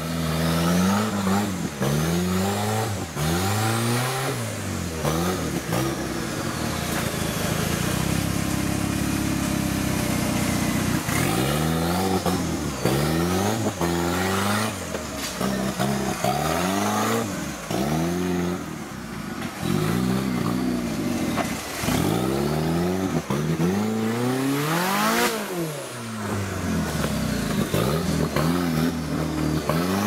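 Off-road competition 4x4's engine revving up and dropping back over and over, about every second or two, as the vehicle works through rough ground. A steadier stretch of running comes about a third of the way in.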